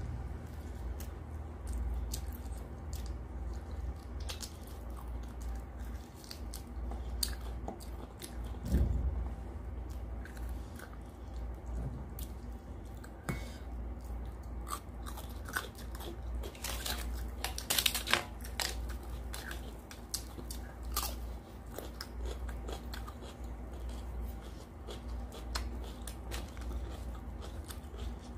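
Close-up chewing and mouth smacking of a mouthful of rice and mutton curry eaten by hand, over a steady low hum. A dull thump comes about nine seconds in, and a burst of crisp crunching a little past halfway is the loudest part.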